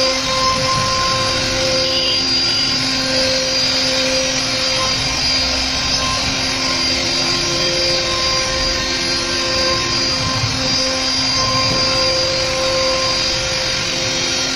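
A CNC router's spindle whining steadily as its cutter carves panel grooves into a teak door, with a few held tones that fade in and out.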